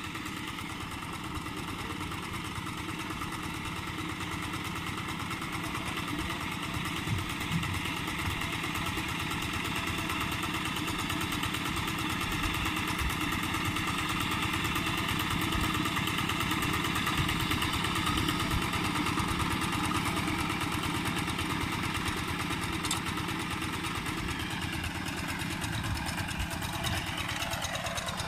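Two-wheel hand tractor's small single-cylinder diesel engine running steadily, its pitch sagging slightly near the end.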